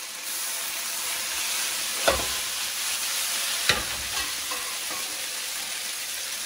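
Wet spaghetti sizzling in hot pancetta fat in a nonstick frying pan, a steady hiss. Metal tongs knock against the cookware twice, about two seconds in and again a second and a half later.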